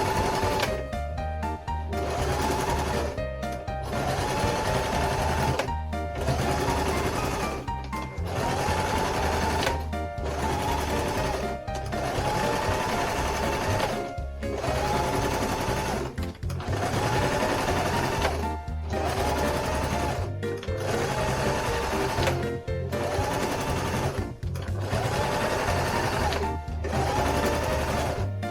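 A household sewing machine runs steadily, stitching fabric, with background music playing over it in a loop that repeats about every two seconds.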